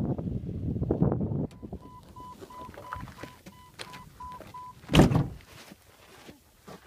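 A vehicle's rumble cuts off abruptly about a second and a half in. A Jeep's warning chime then beeps about three times a second for some three seconds. Around five seconds in comes a single loud thump of the car door shutting.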